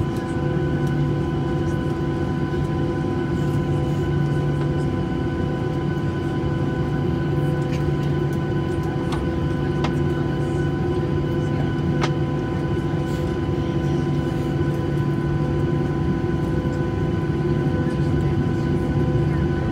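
Steady cabin hum inside a Boeing 737-800 on the ground: its CFM56 engines running at idle power, with several fixed tones over a low rumble and no build-up of thrust. There are a few faint clicks around the middle.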